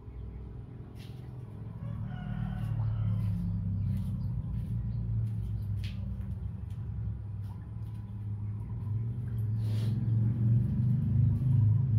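A rooster crowing once, about two seconds in, over a low hum that gets louder toward the end, with a few light clicks.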